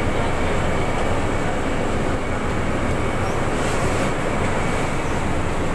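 Steady machinery noise from a sugar bagging line, where bag-filling machines and a roller conveyor carry filled 50 kg sacks, with a faint high steady whine.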